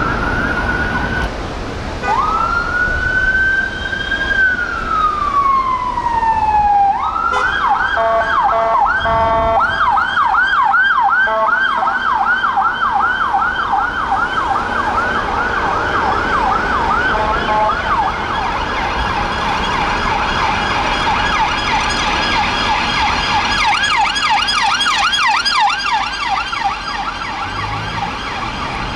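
UK police vehicle sirens: a slow wail that rises and falls once, then about seven seconds in a switch to a fast yelp that keeps repeating, with a second siren overlapping at times.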